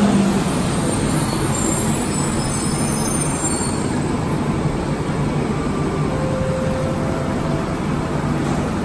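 Bombardier Innovia APM 100 rubber-tyred light-rail train running along the station platform: a steady rumble of tyres and drive, with a faint high whine over the first few seconds.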